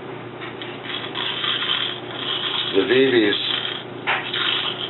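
Steel BBs rattling and rolling inside a Bear River 1911 BB pistol's magazine as it is shaken to settle them into the magazine compartment: a gritty rasping that comes and goes in uneven bursts.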